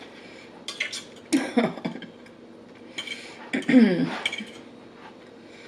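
Metal cutlery clinking and scraping against a plate while eating, with two short vocal sounds in between, the louder one about four seconds in.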